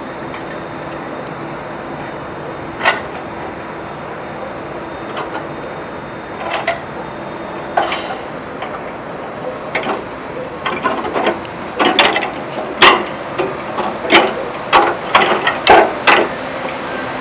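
Heavy welded-steel industrial cart rolling over pavement on 8-inch poly-on-iron casters, with a steady rolling noise. From about ten seconds in come irregular, frequent clanks and knocks as the cart jolts along.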